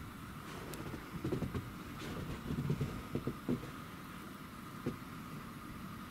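Footsteps in deep snow: a run of muffled, crunching thumps starting about a second in, a few more around three seconds, and one more near the end, over a steady hiss.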